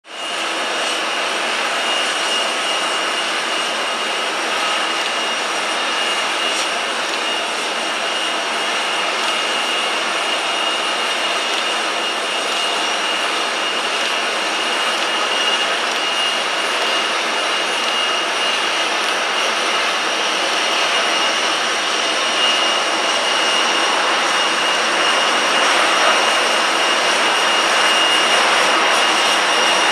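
Airbus A380's four Rolls-Royce Trent 900 turbofans on landing: steady rushing jet noise with a high, even whine, growing louder toward the end as the airliner rolls out on the runway.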